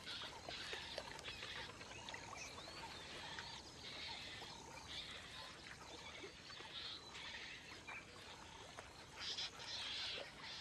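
A flock of yellow-billed storks wading and feeding in shallow water, heard faintly as a noisy background with short bursts every second or two, the strongest near the end.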